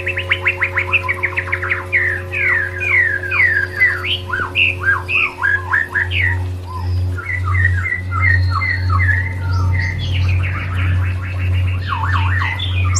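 White-rumped shama (murai batu) song: fast rapid-fire trills give way to sweeping, downslurred whistled notes, then chattering phrases and another rapid burst near the end. A steady low hum runs underneath.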